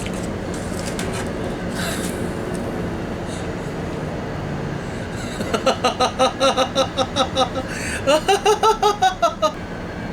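High-pitched laughter, a quick 'ha-ha-ha' in two runs of about five pulses a second, starting about halfway through after a few seconds of steady background noise.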